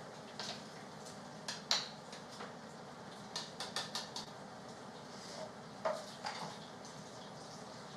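Kitchen clatter: short clinks and knocks of dishes and utensils being handled at a counter, scattered through, with the loudest about two seconds in and a quick run of them around three and a half to four seconds, over a steady low room hum.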